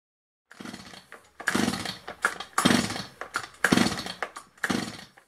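STIHL MS211/C chainsaw sounding in six short bursts, about one a second, with quiet gaps between them.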